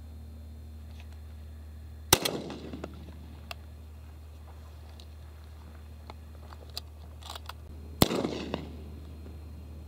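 Two 12-gauge shotgun shots about six seconds apart, each followed by a short rolling echo.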